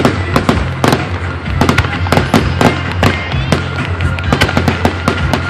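Fireworks going off in quick succession: a dense run of sharp crackling pops, many a second without a break.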